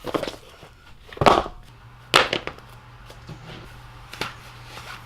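A few irregular sharp knocks and clatters, the loudest about a second in and just after two seconds, over a low steady hum.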